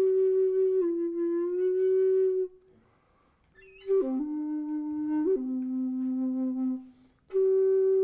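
End-blown bamboo flute playing slow, long held notes. A breathy pause comes about two and a half seconds in, and a short break near the end. The middle notes step lower before a higher note returns.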